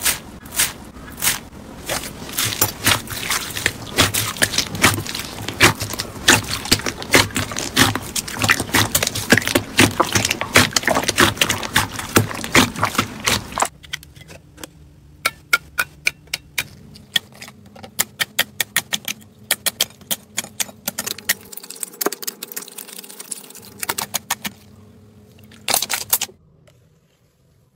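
Hands pressing and squishing slime. For about the first half there is a dense run of rapid crackling and popping from grainy crunchy slime. For the rest, sparser sharp clicks and pops come from clear slime being pressed.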